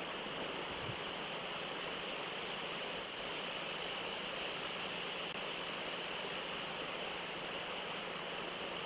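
Steady outdoor live-cam ambience: an even hiss strongest in the upper middle range, a low steady hum, and faint high chirps about twice a second.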